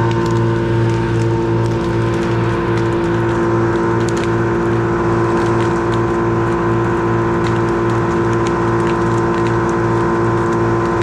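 An engine running steadily at constant speed, with an even low throb of about three pulses a second and faint clicks over it.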